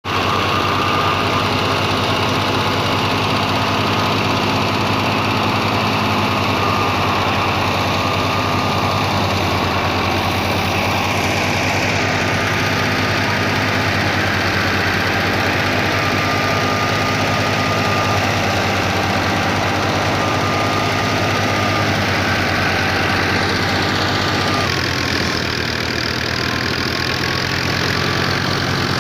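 Engine-driven wheat thresher running steadily: an engine's low hum with a thin whine above it. The sound changes and gets a little quieter near the end.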